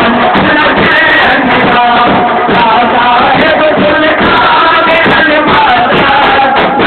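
Men's voices chanting a Sufi devotional refrain together over the steady beating of large hand-held frame drums (dafs). Loud throughout.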